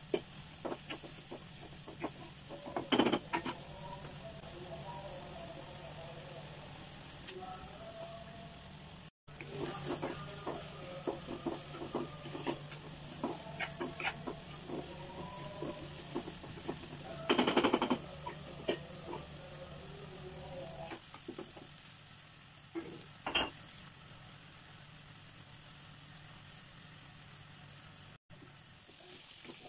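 Chopped onions and green chillies sizzling in oil in a non-stick pan, stirred with a wooden spatula that scrapes and knocks against the pan, with a few louder knocks. The sound cuts out for an instant twice.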